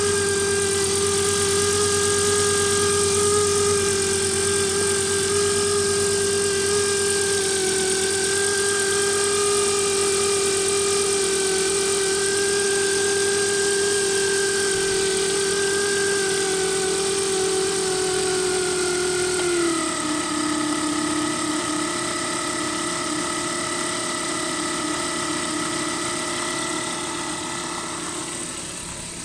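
Failing alternator on a 2005 Volvo S40 making a steady, loud whine with the engine running; the whine drops a little in pitch about two-thirds of the way through. The alternator is bad and needs replacing.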